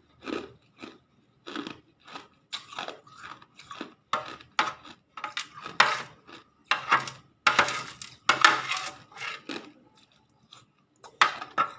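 Hard ice being bitten and chewed close to the microphone: a run of loud, sharp, irregular crunches, thickest in the middle, with a short pause near the end.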